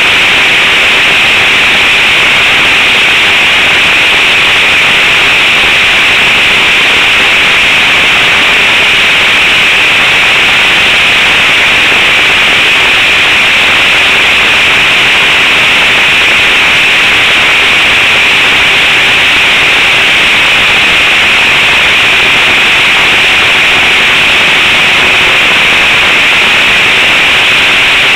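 Radio-control trainer plane's engine and propeller running steadily, loud and close to the onboard camera, heard as an even, unbroken hissing drone with a faint steady tone underneath.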